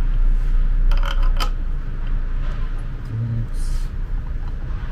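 Light metallic clinks of small steel parts being handled at a power wheelchair's front caster fork during reassembly, a quick cluster of a few clicks about a second in. A steady low hum runs underneath.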